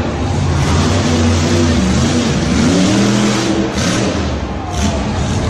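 A vehicle engine sound revving, its pitch rising and falling several times over a steady low rumble, with two short hissing swishes near the end.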